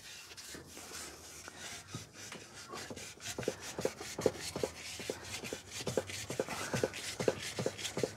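Hand sanding with wet-and-dry (about 400 grit) sandpaper rubbed back and forth over a clothes dryer's idler post, smoothing the grippy surface that had made the idler stick. A scratchy rubbing that settles into quick, even strokes, about three a second, in the second half.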